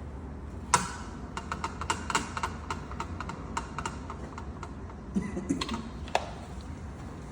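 A run of irregular light clicks and taps, the first and loudest about a second in, stopping near the end, over a steady low hum.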